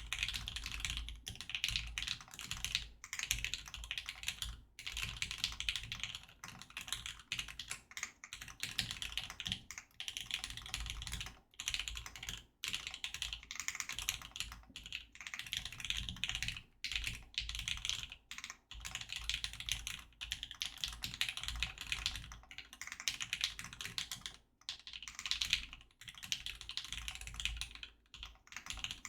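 Continuous fast typing on a custom mechanical keyboard: a Sneakbox AVA with lubed Lavender linear switches on a POM plate and GMK Cafe keycaps, a dense run of keystroke clacks broken by brief pauses.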